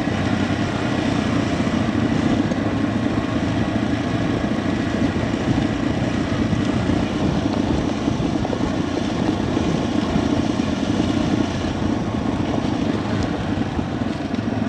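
Yamaha TW200 motorcycle's single-cylinder engine running steadily as the bike is ridden along at an even pace.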